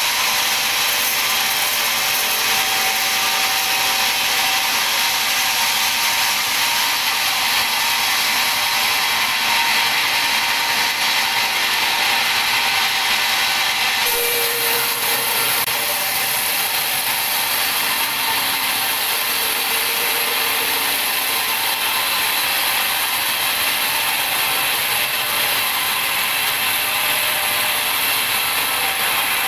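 Sawmill band saw cutting lengthwise through a teak log: a steady, high-pitched hiss of the blade in the wood, whose tone shifts slightly about halfway through.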